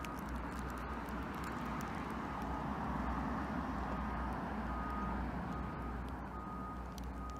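Street traffic noise, swelling as a vehicle passes about midway and then easing off, with a low steady hum underneath.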